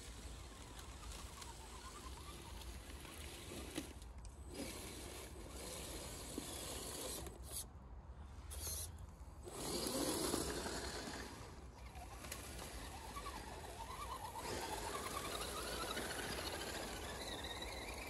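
Radio-controlled scale crawler trucks driving over dry fallen leaves: their electric motors whine and their tyres crunch and rustle through the leaf litter. The sound is loudest about ten seconds in, as one truck passes close by.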